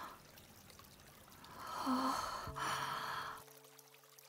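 A person's long breathy sigh, lasting about two seconds through the middle. Faint steady low tones come in under it, drop away abruptly just after it ends, then carry on very quietly.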